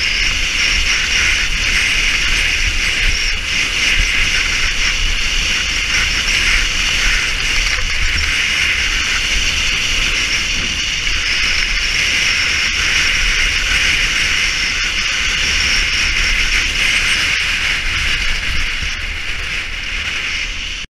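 Steady rush of wind buffeting the camera microphone during a fast straight downhill ski run, with the hiss of skis running over packed snow.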